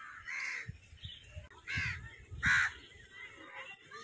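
A crow cawing three times, the last call the loudest.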